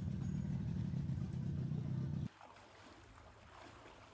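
Rescue boat's motor running with a steady low rumble that cuts off suddenly a little over two seconds in, leaving only faint background sound.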